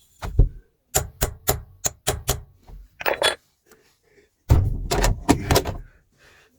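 A hammer striking a punch to peen the rivets of a frame windscreen wiper's joint, about a dozen sharp metallic blows in uneven groups. The blows tighten the worn, loose rivet joints whose play makes the wiper squeak on the glass.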